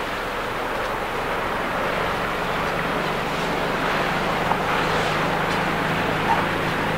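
A motor cruiser running fast close by: a steady low engine drone with the rush of its bow wave and wake, over wind and water noise.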